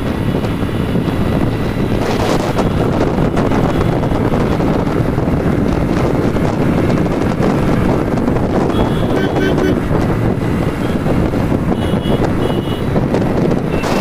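Wind buffeting the microphone on a motorcycle riding at speed, over a steady rush of engine and road noise.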